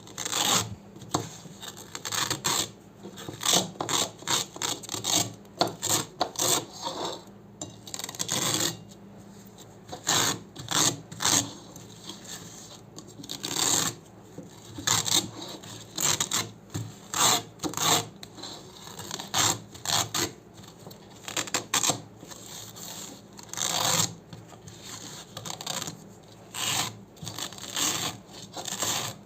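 Hook-and-loop (Velcro) being ripped apart again and again: short rasping rips in quick, irregular runs, with brief pauses between the runs.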